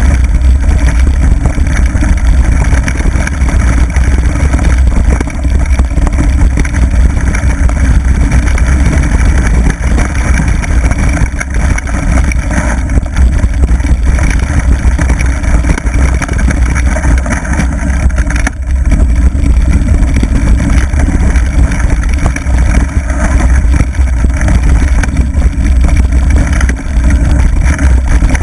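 Wind buffeting an action camera's microphone on a mountain bike riding downhill at speed: a loud, steady low rumble, mixed with the noise of the tyres rolling over rough gravel track.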